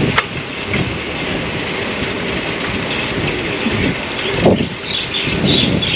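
Bicycle ridden at speed along a paved path, with a steady rattle from the bike and wind buffeting the microphone, and a brief louder sound about four and a half seconds in.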